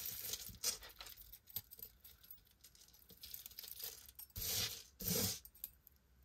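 Small metal jewelry pieces clinking and clicking against each other as they are handled, with two louder rustles about four and a half and five seconds in.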